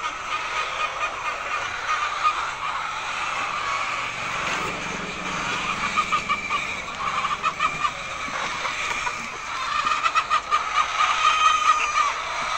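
A flock of laying hens clucking and cackling, with quick runs of repeated notes in bursts.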